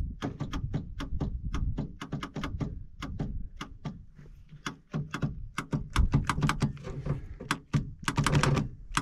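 A rapid series of sharp clicks and light knocks, about three or four a second, over a low rumble, with a louder cluster near the end.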